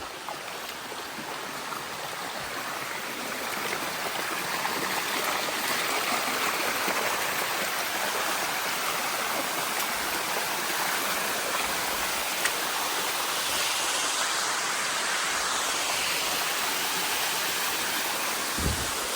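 Water of a waterfall cascading over the rocks, a steady rushing sound that grows louder over the first few seconds and then holds.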